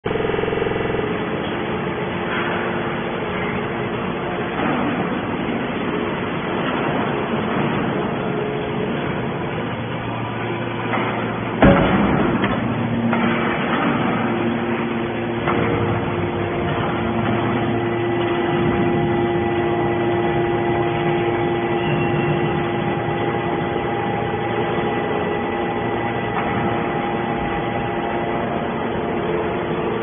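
Hydraulic scrap metal baler at work compressing metal turnings: a steady hum and whine from its hydraulic power unit as the cylinders drive the press lid down. One sharp metal clank, the loudest sound, comes a little before halfway.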